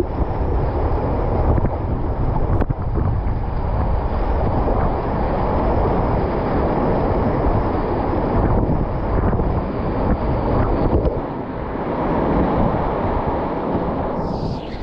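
Whitewater rapids rushing around a kayak, with water and wind buffeting the microphone in a heavy low rumble. The buffeting eases about eleven seconds in, leaving the hiss of the rapid.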